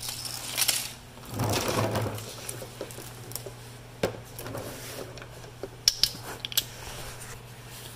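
Rustling and shuffling as the camera is moved under the car, then a few sharp metallic clicks and clinks of hand tools, over a steady low hum.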